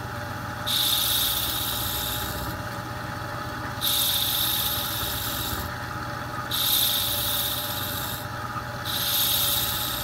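Kamui Black soft cue tip being shaped round with a hand-held abrasive as it spins in a lathe: four rasping strokes of about one and a half to two seconds each, over the steady hum of the lathe. A good deal of tip material is being taken off to set its curvature.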